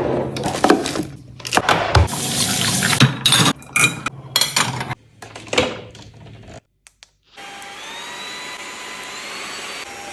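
Brex Iconic VC200 cordless twin-roller vacuum cleaner in use. The first half holds irregular rushing and clattering noise. After a brief silent gap the motor runs steadily, its whine rising slightly in pitch as it spins up.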